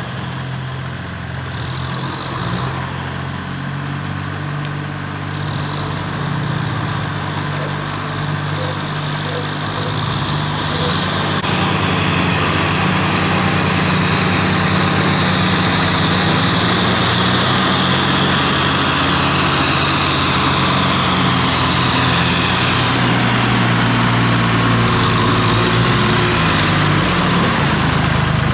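Kubota tractors' diesel engines running steadily as they churn a flooded rice paddy. The sound grows louder about a dozen seconds in as one tractor comes close.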